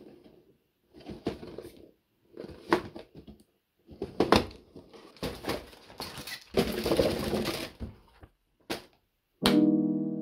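Handling of a plastic model kit: the cardboard box is slid and opened and the cellophane bags of plastic parts runners rustle and crinkle in short bursts with light clicks and knocks. Piano music comes in near the end.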